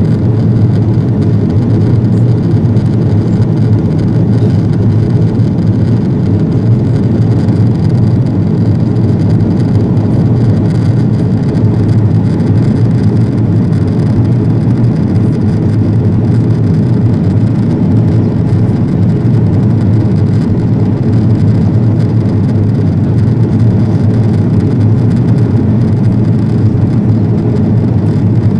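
Steady low drone of an Airbus A330-200 airliner in flight, heard inside the cabin by a window over the wing: jet engine and airflow noise, even throughout with no change.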